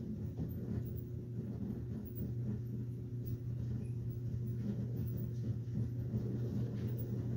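A steady low hum with a faint higher tone above it and a little low background noise.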